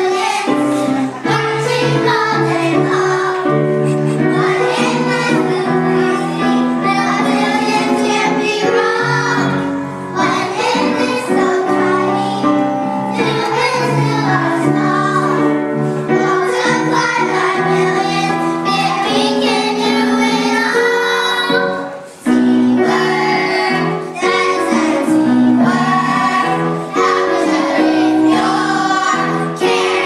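A group of children singing a song together with musical accompaniment, with a brief break about three quarters of the way through.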